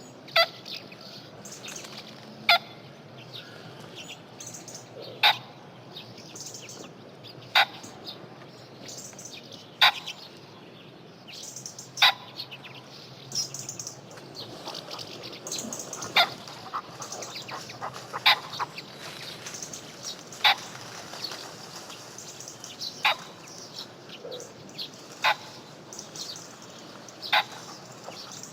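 Pheasant cock calling: short, sharp, harsh cackling calls, about one every two seconds, over faint background ambience.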